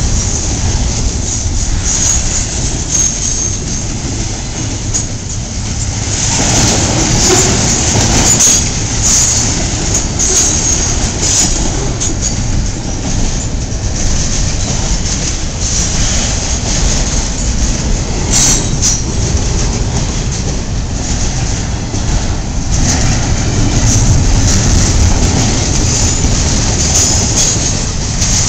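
Intermodal freight train cars, double-stack well cars and trailer flatcars, rolling past close by. The steel wheels give a steady heavy rumble on the rail, with clicks over the rail joints and a high wheel squeal that comes and goes.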